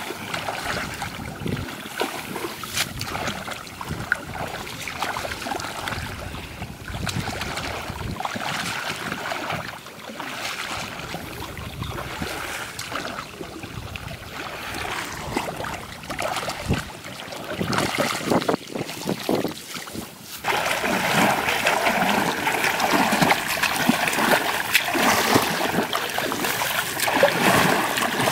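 Shallow floodwater sloshing and splashing as a man wades and works with his hands among rice plants. About twenty seconds in it turns louder and continuous as he churns the water hard with both arms.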